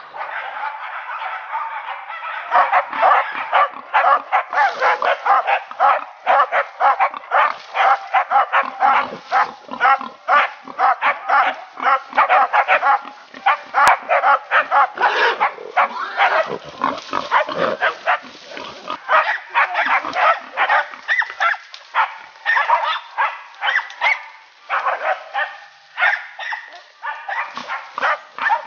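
Several hunting dogs barking and baying hard and without a break at a wounded wild boar, with the boar's squeals mixed in.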